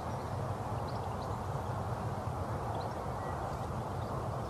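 Steady outdoor background noise picked up by a phone microphone, with a few faint, short high chirps scattered through it.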